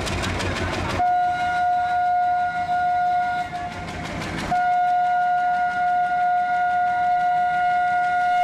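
Horn of an Indian Railways WDP-class diesel locomotive sounding on one steady pitch: a blast of about two and a half seconds, a short break, then a long held blast. The locomotive's diesel engine is heard running just before the first blast.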